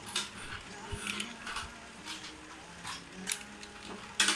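Plastic toy train cars being handled: scattered light clicks and knocks, with one sharper click near the end.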